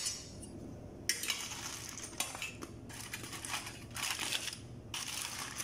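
Aluminium foil crinkling and rustling in irregular bursts as a foil wrapping is pulled open inside a stainless steel steamer basket.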